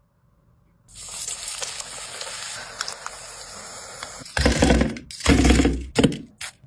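Hot oil sizzling steadily as the egg balls deep-fry. About four seconds in it gives way to a few loud, short bumps and rustles.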